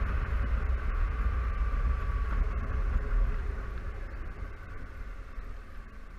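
Wind rumble on a camera mounted on a moving Honda Silverwing 600 maxi-scooter, mixed with its parallel-twin engine and road noise and a faint steady whine. The noise grows quieter over the last few seconds as the scooter slows.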